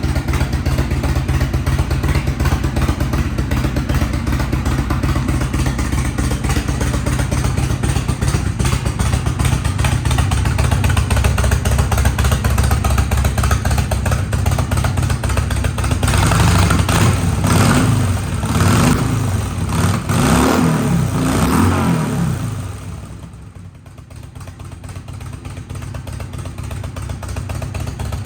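Harley-Davidson XL1200L Sportster's fuel-injected 1200 cc air-cooled V-twin running at idle. About sixteen seconds in, the throttle is blipped a few times in quick succession, then the engine falls back to a quieter idle.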